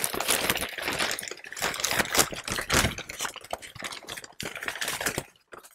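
Brown kraft packing paper rustling and crinkling as hands dig through a stuffed box, an uneven run of crackles and rustles that falls quiet shortly before the end.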